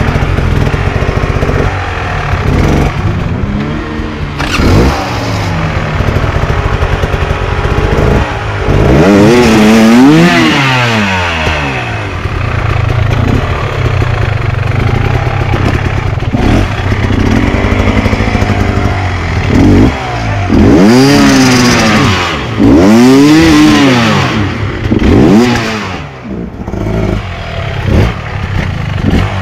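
Enduro dirt bike engine revving in repeated bursts. The pitch rises and falls with each twist of the throttle, with a steadier stretch of running in the middle.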